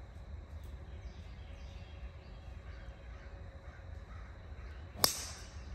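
A golf club striking a ball: one sharp impact about five seconds in, over a steady low background rumble.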